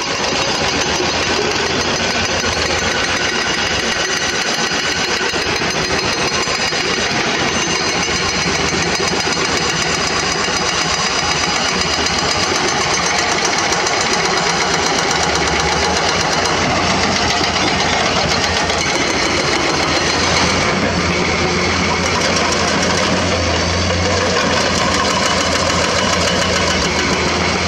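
Excavator diesel engine running while its hydraulic rock breaker hammers rock in a rapid, steady run of blows.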